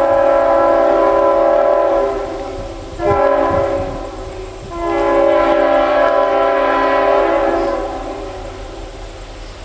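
Leslie RS-5T-RRO five-chime locomotive air horn sounding a steady chord: a long blast, a short one about three seconds in, then another long blast that fades away near the end.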